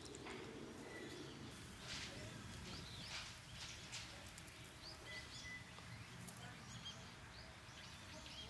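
Scattered short bird chirps and calls over faint, steady outdoor background noise.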